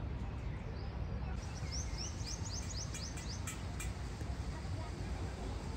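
A small bird giving a quick run of short, rising, high chirps, about eight in a second and a half, over a steady low outdoor rumble.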